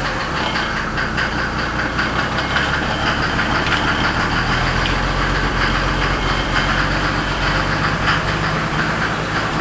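Mercedes 300SD's OM603 straight-six turbodiesel idling with a rapid knocking clatter. This is the engine knock being investigated; the owner's tags point to the OM603's known bent-connecting-rod trouble.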